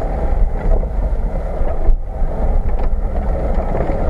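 Off-road vehicle heard from inside its cab while driving a bumpy dirt track: a steady engine-and-road drone with a heavy low rumble.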